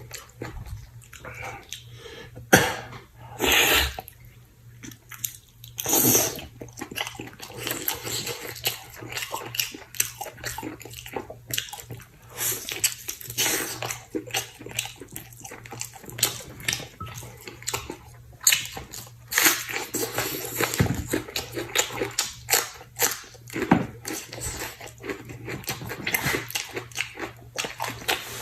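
A person eating chicken stewed with mushrooms close to the microphone: chewing, smacking and slurping, with many short wet clicks and a few louder bursts.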